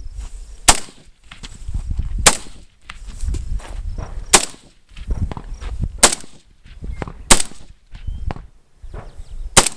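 Six single gunshots fired slowly, about one to two seconds apart, with low rumbling between the shots.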